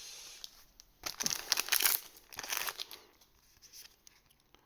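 Foil trading-card booster pack wrapper crinkling as it is handled, in short bursts about a second in and again around two and a half seconds in.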